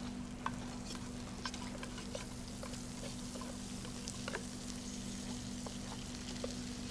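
Scattered light clicks and taps of handwork at a table over a steady low hum.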